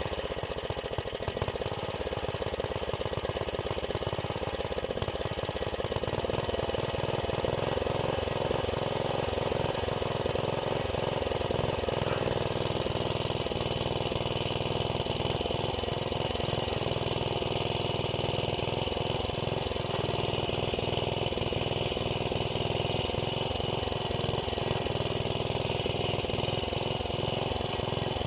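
Engine of a Luch walk-behind tractor running steadily, its rapid firing pulse heard throughout.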